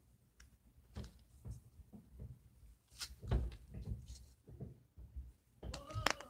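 Small plastic toy pieces, an LOL Surprise doll's tiny shoes and their packaging, handled in the hands: scattered soft knocks and clicks, the loudest about three seconds in.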